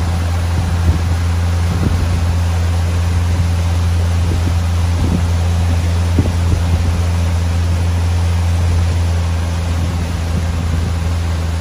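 Motorboat engine running steadily at cruising speed, a low hum under the rush of water along the hull and wind on the microphone.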